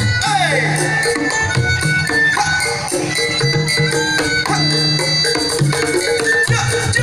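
Kendang penca music, the drum ensemble that accompanies pencak silat: kendang drums beating under a tarompet shawm melody that bends and slides in pitch.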